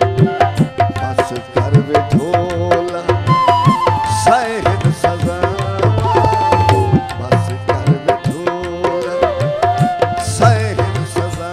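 Instrumental break in a Punjabi folk song: tabla playing a dense, steady rhythm under a melody line that holds and glides between notes.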